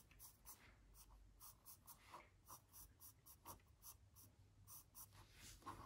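Faint scratching of a pencil and a pen on paper, in short, irregular strokes.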